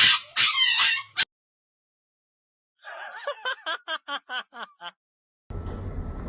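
Loud, shrill vocal sounds for about a second, then after a pause a rapid run of short giggle-like notes, about five a second, each falling in pitch. A steady noise comes in near the end.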